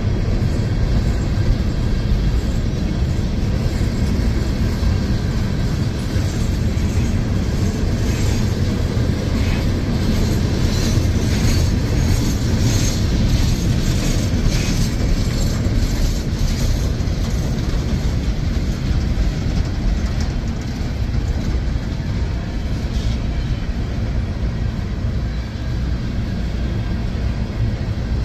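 Empty open hopper cars of a CSX freight train rolling past: a steady rumble of steel wheels on the rail. A stretch of rapid clicking and rattling comes in the middle.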